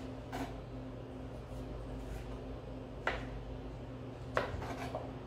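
Kitchen knife peeling the skin off a piece of fresh ginger on a cutting board, with a few short scrapes and taps of the blade against the board, over a steady low hum.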